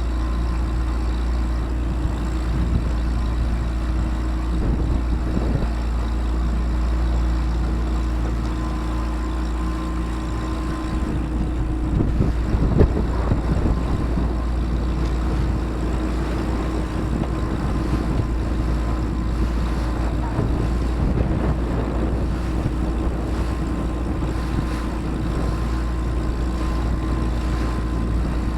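Motorboat engine running steadily at an even pitch over a heavy low rumble, with a short louder, rougher stretch about twelve seconds in.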